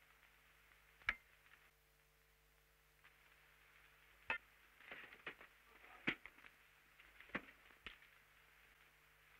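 Near silence: faint hiss and hum of an old film soundtrack, broken by about five scattered sharp clicks.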